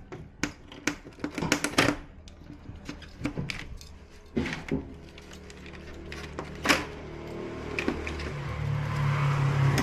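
Clicks and knocks of TV parts being handled and set down during disassembly. A steady low hum with a hiss grows louder over the last few seconds.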